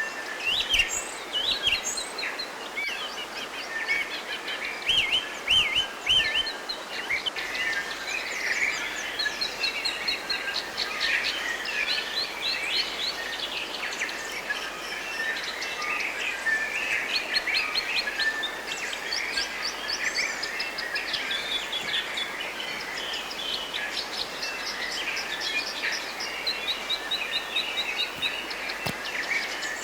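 A dense chorus of songbirds, many birds at once, with overlapping chirps and fast repeated trills, over a steady soft hiss.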